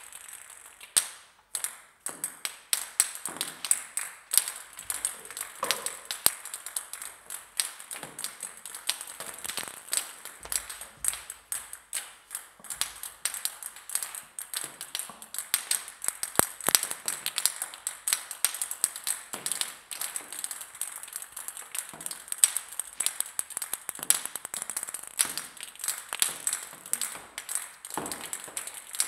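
Many plastic table tennis balls bouncing on a hard floor: a rapid, irregular patter of light, high-pitched pinging clicks, often overlapping. A few separate bounces come first, and the patter grows dense after about two seconds.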